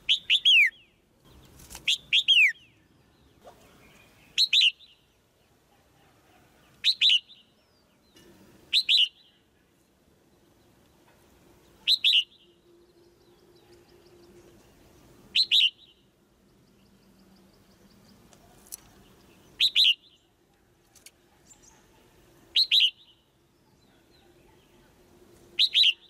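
Red-whiskered bulbul giving short, sharp chirps every two to four seconds, each a quick note sliding downward, a few coming in quick pairs. These are the female's chattering calls used to provoke a male bulbul into singing harder.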